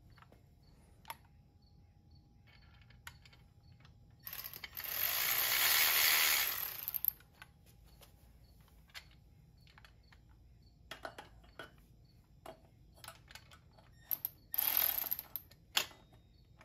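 Ratchet wrench running bolts in: two spells of rapid ratcheting, a longer one about four seconds in and a shorter one near the end, with scattered light clicks and clinks of metal parts between.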